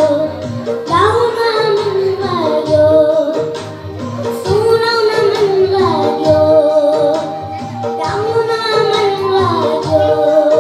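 A child singing a Nepali Christian song into a microphone over instrumental accompaniment with a steady beat.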